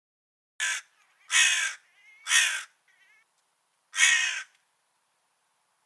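Crow cawing: four caws starting about half a second in, the first one short, with a pause of over a second before the fourth.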